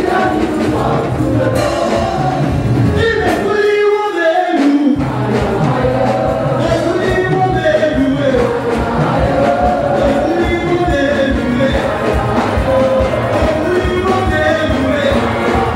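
Church congregation singing gospel worship music together over instrumental accompaniment. The low accompaniment drops out for about a second near four seconds in, then returns.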